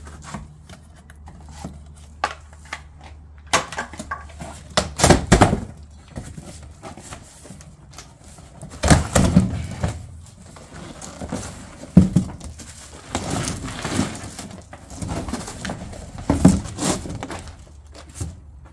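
A large cardboard carton being torn open and pulled apart by hand: rustling and scraping cardboard with several dull knocks and thumps.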